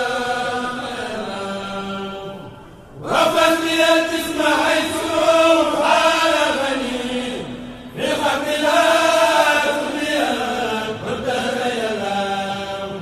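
A voice chanting in long melodic phrases of held, wavering notes, with short breaks about three and eight seconds in.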